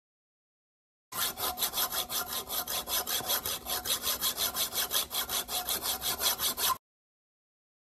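Hand hacksaw cutting into the tip of a conch shell: fast, even back-and-forth strokes of the blade rasping on the shell, about five a second. It starts about a second in and cuts off suddenly near the end.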